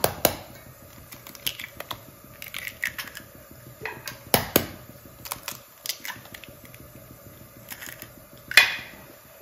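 Two eggs being cracked open: sharp taps of eggshell against a bowl near the start, about halfway and near the end, with small clicks and ticks of shell handling between.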